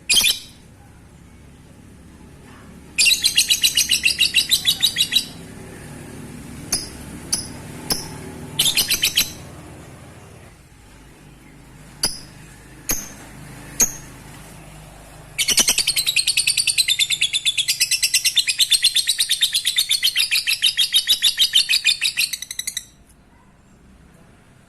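Lovebird ngekek: a fast chattering trill of rapid high notes. One short burst of about two seconds, then a few separate chirps, then one long trill lasting about seven seconds.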